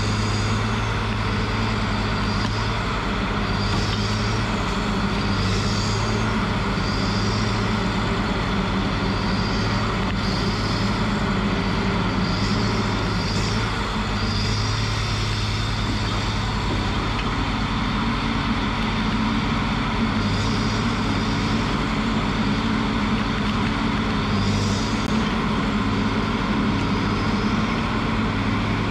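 Tracked feller buncher's diesel engine running steadily while the machine handles a felled tree with its felling head, with short high hissing sounds every second or two.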